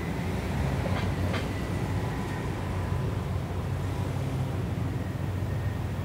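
Steady low rumble of street traffic, with vehicles passing, and two faint clicks about a second in.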